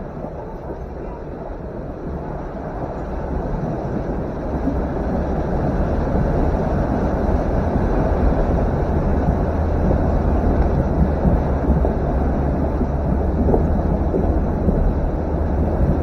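Vehicle wading through a fast-flowing creek: engine running under steady low rumble with water rushing and churning against the body. It grows louder over the first several seconds as the vehicle moves into deeper water, then holds steady.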